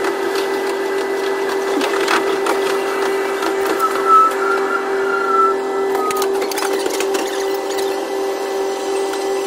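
KiHa 122 diesel railcar running, heard from the driver's cab with the audio sped up to double speed: a steady hum with a fast run of clicks and rattles from the wheels and running gear, and a brief thin squeal in the middle.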